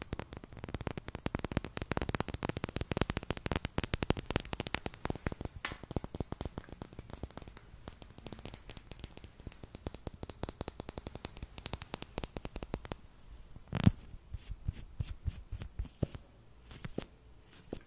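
Rapid, crisp tapping and scratching of fingernails on a plastic eyebrow-makeup tube, held close to the microphone. About 14 seconds in there is one sharp, loud click as the tube is pulled open, then a few softer clicks.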